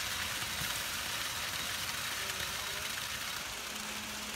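Wet concrete pouring from a mixer truck's chute into a post hole, a steady gritty rain-like hiss. A steady low hum joins near the end.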